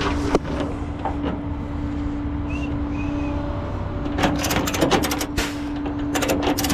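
A flatbed tow truck with a steady hum, with sharp clicks, then a dense run of metallic clicks and rattles from about four seconds in.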